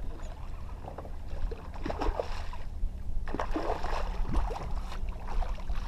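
A big hooked bass splashing and thrashing at the surface beside a small boat while it is being netted, in irregular bursts, over a steady low rumble.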